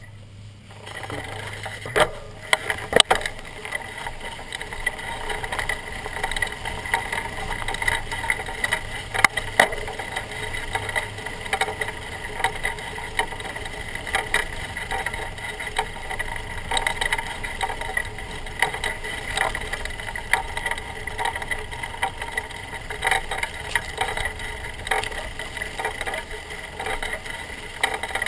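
Mountain bike rolling over grass, heard from a camera clamped to the front fork: a steady rattling rush of the knobby tyre and bike, starting about a second in, with frequent sharp knocks from bumps.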